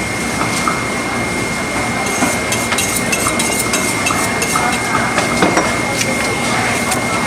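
Pork butcher's market stall: a steady hubbub with a constant high whine, and a run of sharp clicks and knocks through the middle seconds from knife and cleaver work on a pig carcass.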